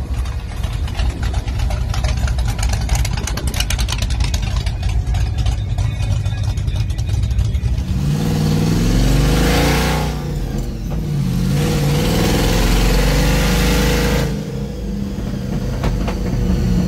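Engine of a lifted Ford F-series monster-truck pickup running at low speed with a lumpy, pulsing exhaust note. About eight seconds in, it revs hard, the pitch rising and falling in two loud spells.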